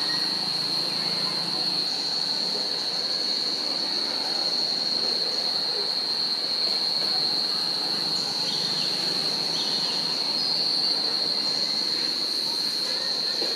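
Cicadas droning in one steady, high-pitched, unbroken tone, with a couple of brief chirps about two-thirds of the way through.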